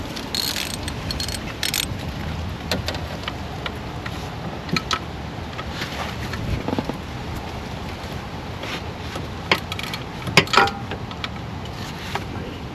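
Scattered metallic clicks and clinks of hand tools and parts as engine components are bolted back on, with a quick run of sharper, louder clicks about ten seconds in.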